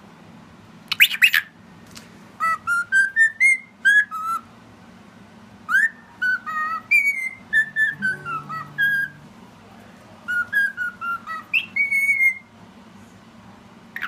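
Cockatiel whistling a learned tune in three short phrases of clear, gliding notes, after a brief harsh chirp about a second in.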